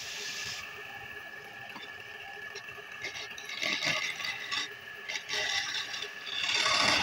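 Belt-driven wood lathe running with a steady hum as a turned wooden spindle spins. About three seconds in and again near the end, something is held against the spinning wood, giving a loud scraping hiss in bursts.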